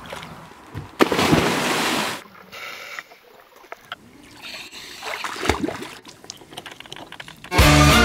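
Water splashing and sloshing around a scuba diver in a lake: a loud burst of splashing about a second in, lasting about a second, then quieter, uneven sloshing and small knocks.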